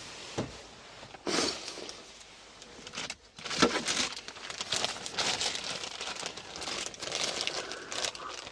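Rustling and scraping with many light clicks and knocks as boat gear is handled and shifted. The sound starts about a second in and is busiest through the second half.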